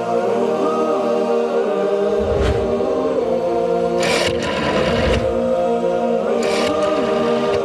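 Chant-like vocal theme music of sustained, wavering voices. Two short swishing noise effects cut across it, about four seconds in and again about six and a half seconds in.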